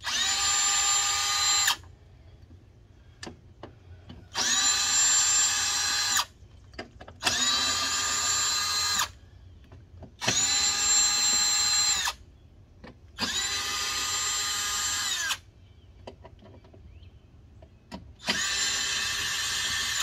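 Cordless drill-driver running in six short spurts of about two seconds each, undoing the bolts of a Cummins ISX crankcase filter housing. Each spurt is a steady motor whine that spins up and winds down, and the fifth is a little quieter.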